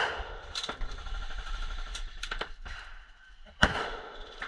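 Several single airsoft gun shots, sharp clacks at irregular intervals, the loudest right at the start and another strong one about three and a half seconds in.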